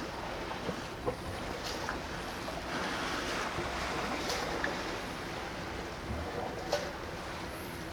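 Steady wind and water noise by the waterside, with a few faint sharp clicks.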